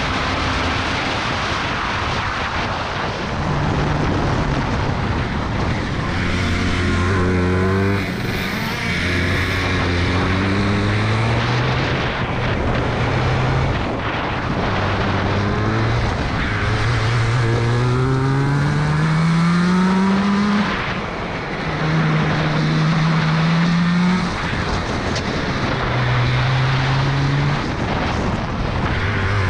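Hirth two-stroke kart engine heard from onboard at racing speed, its pitch dropping off and then climbing again several times as the kart brakes into corners and accelerates out of them, over a steady rush of wind and road noise.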